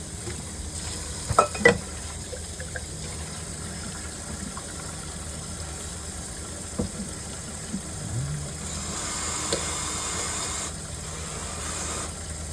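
Steady low background hum, with two sharp knocks about a second and a half in and a hiss lasting about two seconds near the end.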